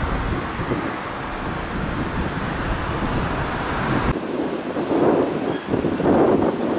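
Jet airliner engines running at taxi power: a steady rumble and hiss with no clear pitch, which changes abruptly about four seconds in and then comes in uneven surges.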